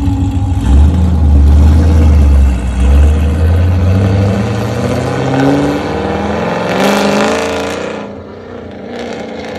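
2010 Chevrolet Camaro SS's LS3 V8 pulling away and accelerating hard, its exhaust note climbing steadily in pitch for several seconds. The sound drops off sharply near the end as the car moves away.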